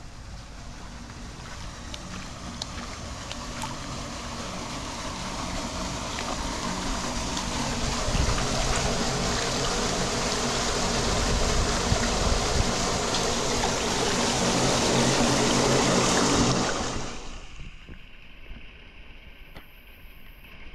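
Muddy floodwater rushing into a curbside storm drain opening. The noise of the water grows louder over most of the clip, then falls away suddenly near the end.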